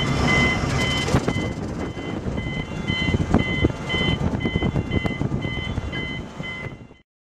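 Electronic warning beeper aboard a car ferry, giving short two-tone beeps about twice a second over the steady rumble and noise on deck. The sound cuts off suddenly near the end.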